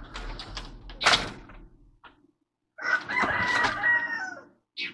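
A rooster crows once, a single long pitched call of about a second and a half, starting about three seconds in. Before it come a few clattering knocks, the loudest a sharp one about a second in.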